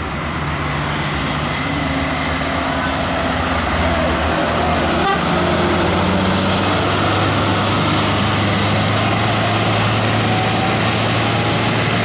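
Diesel engine of a Mercedes-Benz OH 1626 bus running under load as the bus climbs a hairpin bend close by. It grows louder over the first few seconds, then holds a steady low drone.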